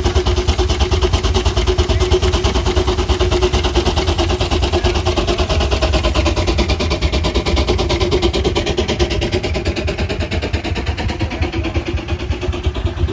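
Vintage traction engine running steadily under belt load, with a rapid, even beat, driving a long flat belt. It eases a little in level near the end.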